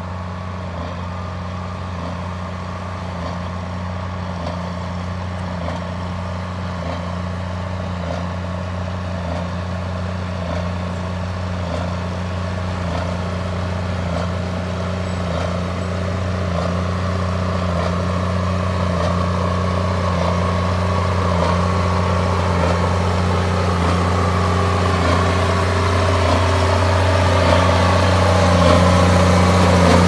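Large farm tractor pulling a CLAAS Quadrant 1150 Roto Cut large square baler while baling hay windrows: a steady engine drone with the baler working and a faint regular beat about once a second. It grows louder as the rig comes close.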